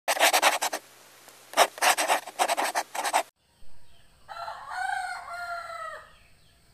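A rooster crowing once, a pitched call of nearly two seconds that bends and drops off at the end. Before it, and louder, comes a run of rapid, harsh rasping bursts lasting about three seconds.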